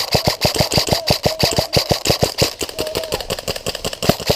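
An airsoft electric gun firing a long full-auto burst, a steady rapid stream of shots at about seven a second, with a faint motor whine beneath.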